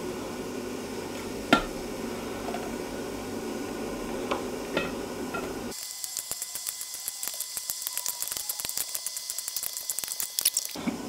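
A metal spoon clinking against a pot and a stainless steel bowl as boiled gnocchi are lifted out of the water: one sharp clink about a second and a half in and two lighter ones a few seconds later, over a steady low hum. About halfway through the hum cuts out abruptly, and a thin hiss with rapid faint crackling runs until just before the end.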